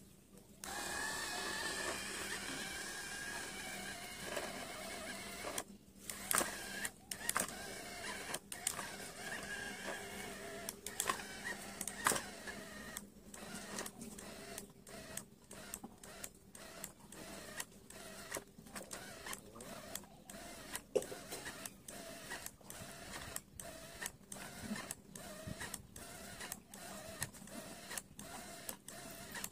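Small electric gear motor of a homemade toy tractor whining as it drives the wheels in loose sand. The tractor is stuck. From the middle on the motor cuts out and starts again in quick short runs, about once or twice a second.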